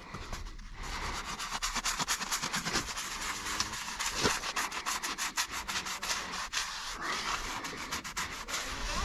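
Farrier's rasp filing a horse's hoof in quick, repeated strokes.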